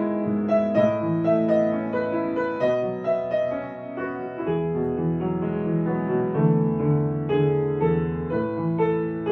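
Soft piano music, a slow melody of sustained notes over held chords.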